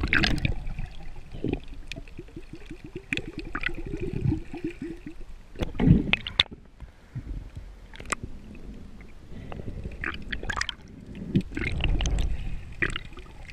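Muffled underwater sound of water moving and bubbling around a submerged camera, with scattered clicks and knocks and a quick rattling run of ticks about two seconds in.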